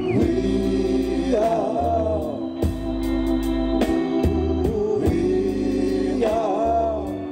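Live oldies band: male voices singing a slow song in harmony, with held notes that waver, over sustained keyboard chords, bass and drums.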